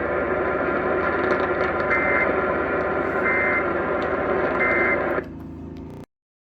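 Three short Emergency Alert System end-of-message data bursts, warbling digital tones about a second apart, over steady radio static. Near the end the static drops and the audio cuts off to silence.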